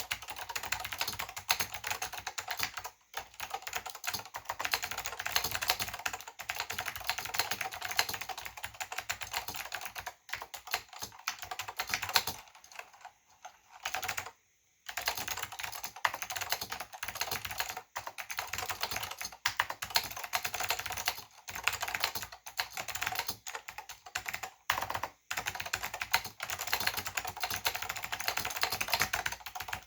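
Fast, continuous typing on a Northgate OmniKey/Plus keyboard: clicky Alps SKCM White switches under ABS doubleshot keycaps, rapid key clicks. The typing stops briefly about three seconds in, breaks off for about two seconds around halfway, and pauses once more near the end.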